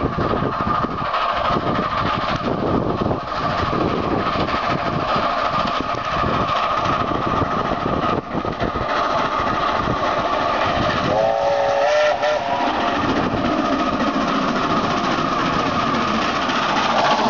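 NZR Ja class 4-8-2 steam locomotive working hard up a grade, its exhaust beating steadily as it draws closer. About eleven seconds in it sounds one short blast on its steam whistle.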